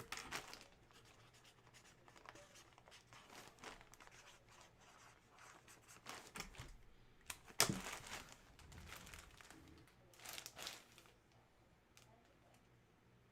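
Packaging being handled: faint, intermittent crinkling, rustling and tearing, with one sharp knock about seven and a half seconds in and another short rustle a few seconds later.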